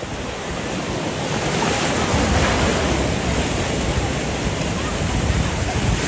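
Sea surf breaking and washing through shallow water, a steady rush that swells about two seconds in, with wind rumbling on the microphone.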